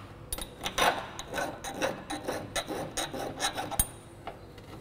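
Fine file rasping back and forth on the metal edge of a propshaft universal-joint yoke's cap bore, dressing out a burr left where the cross joint bottomed out on the cap. Quick short strokes, about four a second, ending with a sharp click near the end.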